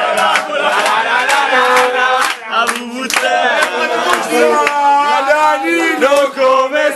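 A group of young men chanting and singing together in loud, rowdy unison, with sharp rhythmic hits through the first half.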